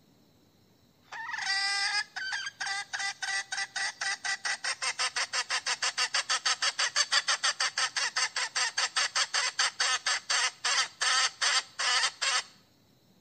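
A hen calling for a rooster: one drawn-out note, then a long, even run of sharp, repeated notes, about four a second, that stops suddenly after some ten seconds.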